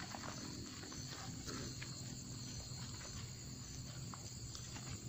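Night insects, crickets, calling in a steady high-pitched chorus, with soft footsteps on a concrete path.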